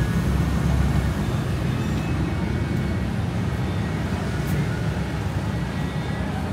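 Street traffic: a motor vehicle engine running close by, a steady low rumble that slowly fades.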